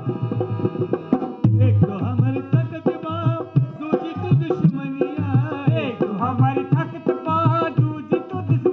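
Folk dance music: hand drums keep a steady beat, and a wavering melody line comes in over them about a second and a half in.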